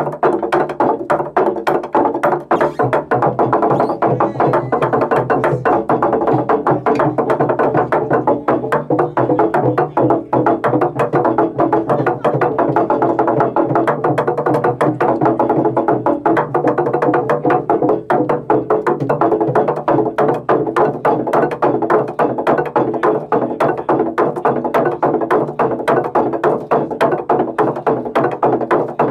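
Garamut, the hollowed-log wooden slit drums of the Sepik, beaten in a fast, continuous, even rhythm of many strikes a second, with a hollow, pitched wooden ring.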